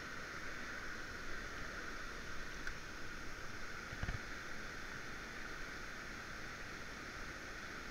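Steady rush of flowing river water, with a low rumble underneath and one soft knock about four seconds in.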